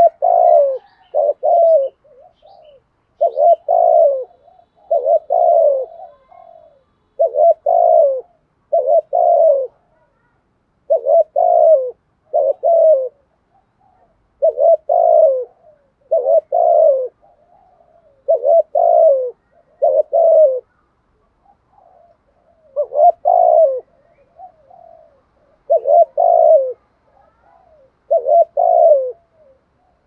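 Spotted dove cooing over and over: low coos in groups of two or three notes, a group about every two seconds, with a few short pauses. This is the insistent cooing ('thúc gù') of a decoy dove.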